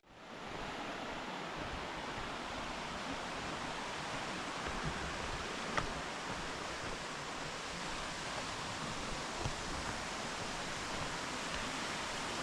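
Waterfall cascades rushing steadily, a constant wash of falling water that fades in as the music cuts off, with a couple of faint clicks.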